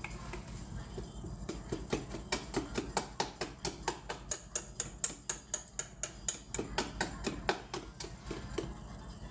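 Hand whisk beating batter in a stainless steel bowl, the wires clicking against the metal in a quick, even rhythm of about four strokes a second, stopping near the end.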